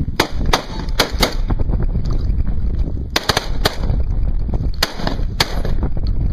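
A string of sharp cracks at irregular intervals, about nine in six seconds and partly in quick pairs, over a steady low wind rumble on the microphone.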